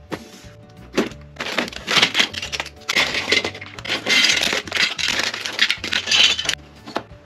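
Plastic bags crinkling and hard plastic marble-run track pieces clattering against each other and the table as they are handled and tipped out, with a sharp knock about a second in.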